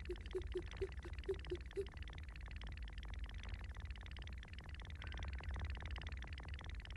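Cartoon footstep sound effect of quick, light steps: a rapid, even ticking, with short soft pitched blips about four times a second that stop about two seconds in.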